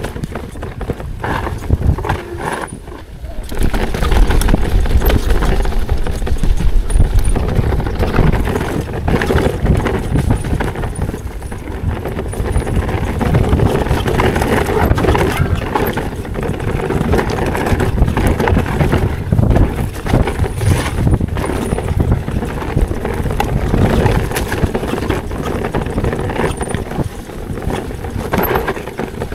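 ProPain Ekano 2 CF mountain bike riding down a rocky trail: tyres, chain and frame clatter in rapid, irregular knocks and rattles over a steady rushing noise. It gets louder about four seconds in.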